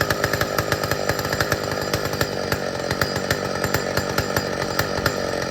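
Old McCulloch chainsaw engine running steadily, its rapid firing pulses even throughout.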